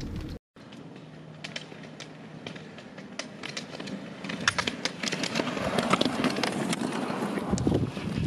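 Roller skis rolling on asphalt with the sharp clicks of ski-pole tips striking the pavement, after a brief gap near the start. The rolling and clicking grow louder from about halfway through as a group of skiers skates up close.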